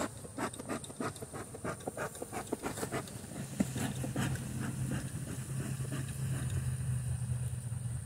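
Bee smoker puffed in a quick run of short bursts, then a steady low buzz of honeybees flying around the opened hive takes over about halfway through.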